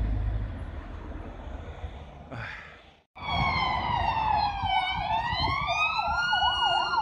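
City traffic rumbling, then after a break, emergency vehicle sirens start up. One fast yelp rises and falls several times a second, over a slower wail that dips and climbs again.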